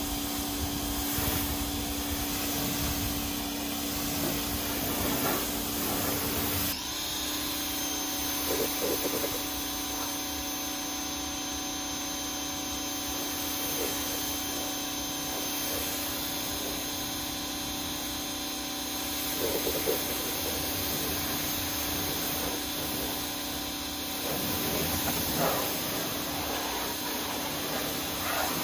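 Ryobi pressure washer running steadily, its motor drone over the hiss of the water jet spraying onto a car; the drone steps slightly in pitch about seven seconds in.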